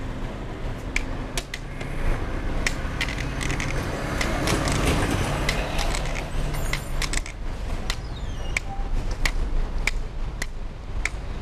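White cane tip tapping on asphalt in a steady walking rhythm, roughly one sharp tap every half second to second, over background road traffic.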